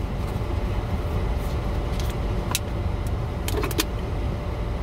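Plastic lid being pried off a fountain-drink cup: a few sharp clicks and snaps, about one and a half, two and a half and three and a half seconds in. Under them runs a steady low rumble inside the parked car's cabin.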